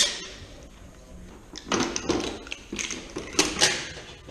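The cordless drill stops at the very start. Then come three short bursts of rattling and clanking from the sheet-metal wall-mounting plate of a mini split indoor unit being handled, the last the loudest.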